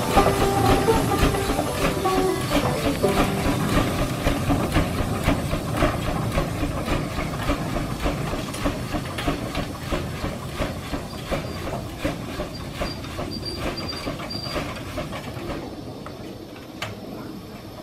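1915 steam traction engine running on the belt to a threshing separator, its exhaust chuffing in a quick, even beat over a steady hiss of steam. The sound grows fainter near the end.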